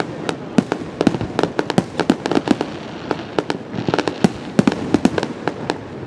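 Fireworks display: a rapid, irregular volley of aerial shell bursts and crackling reports, several bangs a second over a continuous background rumble.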